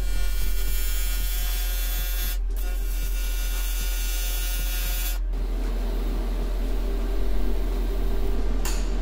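AC TIG welder arc buzzing on aluminum as two tack welds are laid, each about two and a half seconds long with a brief break between them; the buzz stops about five seconds in. A low steady hum runs underneath.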